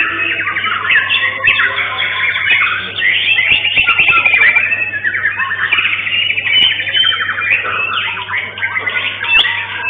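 White-rumped shama (murai batu) singing a fast, continuous, varied song of rapid trills and whistled phrases.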